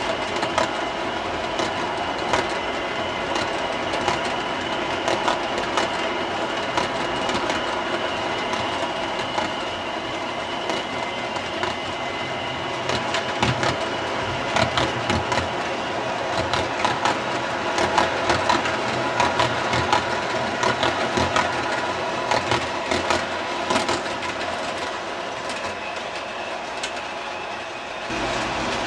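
O-gauge model grain train's covered hopper cars rolling past on three-rail track: a steady rolling clatter with frequent sharp clicks of the wheels. It drops away near the end as the last cars pass.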